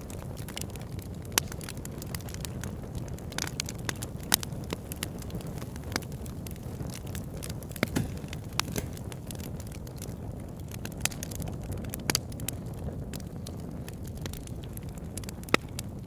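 Crackling fire: irregular sharp crackles and pops over a steady low rumble.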